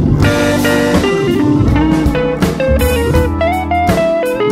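Background music: a plucked guitar melody in a bluesy style over a steady drum beat.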